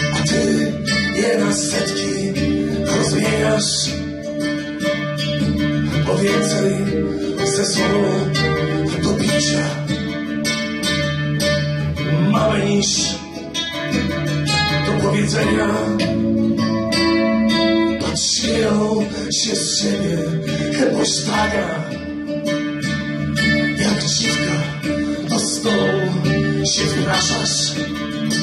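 A man singing live to his own strummed acoustic guitar, in a small room.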